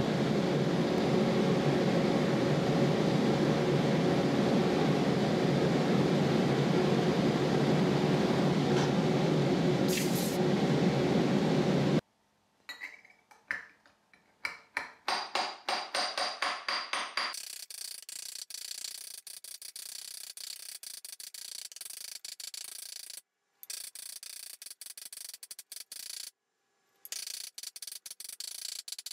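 Gas torch hissing steadily while annealing a thin fine-silver cup, cutting off suddenly about twelve seconds in. Then a fast run of small hammer blows on the silver cup over a steel stake, the metal ringing faintly, as the cup is raised.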